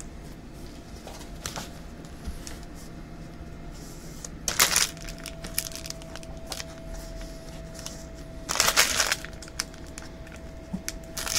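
Trading card pack wrappers crinkling and tearing as packs are opened, with two louder bursts of crinkling, about four and a half and eight and a half seconds in.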